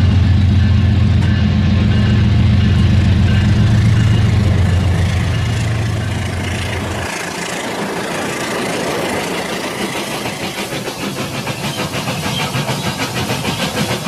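Low, steady diesel-locomotive engine drone that stops about seven seconds in, followed by a rapid, rhythmic clickety-clack of train wheels over rail joints.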